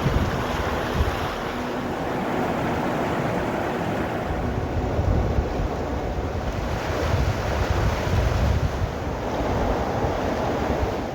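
UAZ off-road vehicle on the move: its engine runs faintly beneath a loud, steady rushing noise with a heavy rumble and wind buffeting the microphone.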